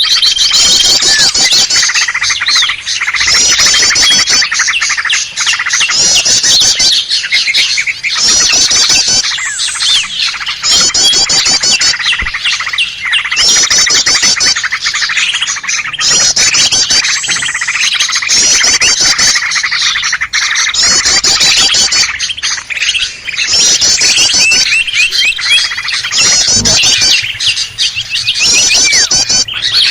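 A bird-lure recording of many small songbirds chattering and calling at once, dense and without pause. A high, rapid trill repeats about every two seconds over the steady chatter.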